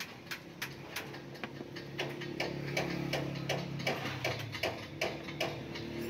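Small metal clicks at an even pace, about three a second, from a brass euro-profile lock cylinder being turned and worked in the hands. A low steady hum comes in about two seconds in.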